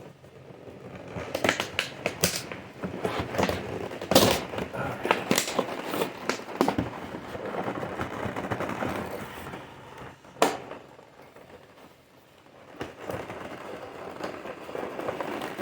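Toy packaging being handled and opened: plastic and cardboard crackling and rustling, with scattered clicks and a couple of sharp snaps, one about four seconds in and one about ten seconds in.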